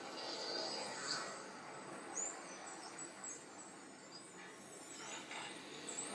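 Nature documentary soundtrack playing quietly from a television: a soft hiss with a few short, high whistling chirps.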